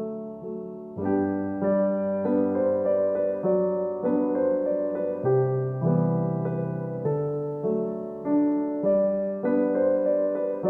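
Background piano music: a gentle, steady melody of struck notes.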